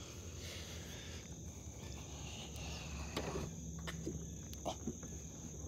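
Insects, likely crickets, trilling steadily at a high pitch, with a few faint clicks about halfway through.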